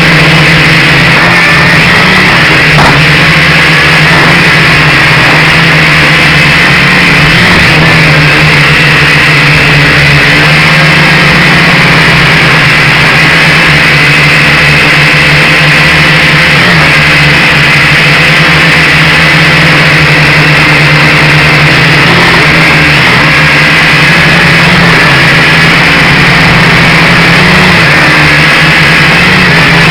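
Quadcopter drone's motors and propellers whirring steadily and loudly, a constant hum with a higher buzz above it.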